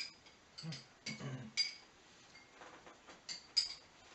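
Cutlery clinking against plates and dishes at a lunch table: a string of about eight short, light clinks, the loudest a little past three and a half seconds in.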